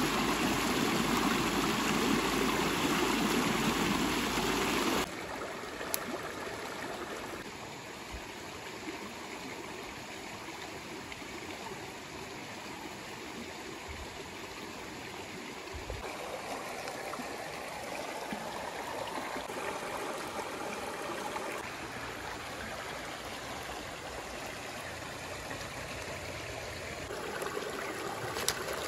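Running water of a stream: a steady rush, louder for about the first five seconds, then dropping abruptly and shifting in level a few more times.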